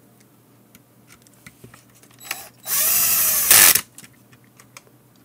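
Small electric screwdriver running for about a second, driving a screw into a Fluke 289 multimeter's circuit-board mounting. Its motor whine rises and then falls in pitch and is loudest just before it cuts off. Light clicks of handling come before and after.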